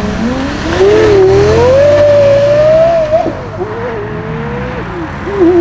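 Porsche Carrera GT's 5.7-litre V10 engine accelerating hard. The engine note climbs over the first two seconds and holds high. About three seconds in it drops sharply as the throttle comes off, then runs lower and quieter.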